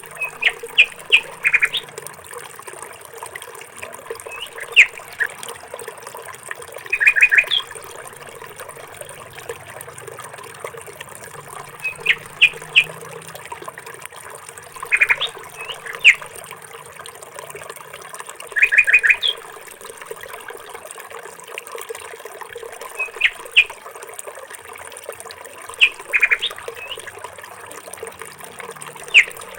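A songbird chirping, repeating a short phrase of quick high notes every three to four seconds over a steady faint background hiss.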